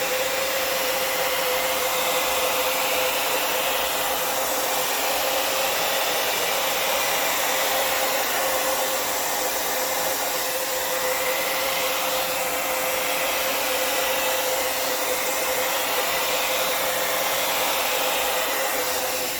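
Handheld hair dryer running steadily, an even rush of air with a steady motor tone, blowing poured acrylic paint across the canvas.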